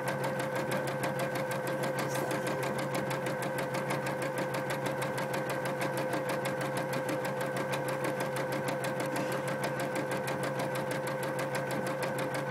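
Computerized embroidery machine stitching a design into fabric: the needle's rapid, even stitch rhythm over a steady motor hum.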